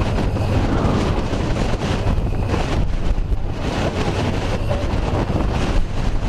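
Strong wind rushing and buffeting the microphone, a steady dense rush with a heavy low rumble.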